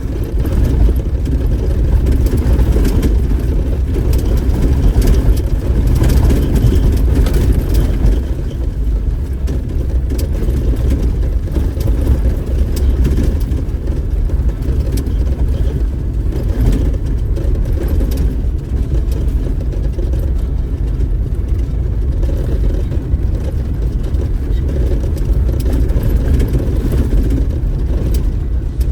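Diesel four-wheel-drive vehicle driving along a smooth dirt trail: a steady low engine and tyre rumble, with a few brief knocks and rattles.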